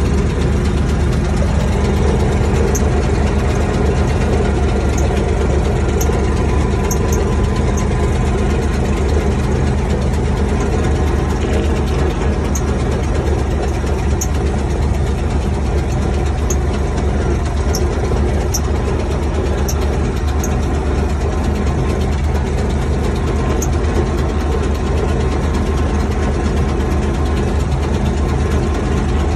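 Tractor engine running steadily as the tractor drives across a field, heard from the driver's seat in the cab, with a deep, even drone. A few faint, short high ticks are scattered through it.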